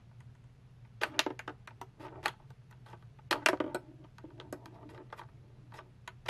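Plastic desktop pinball toy in play: flippers clacking as the buttons are pressed and the ball rattling around the playfield. The clacks come in quick bunches, the loudest about three and a half seconds in, then thin out to lighter ticks.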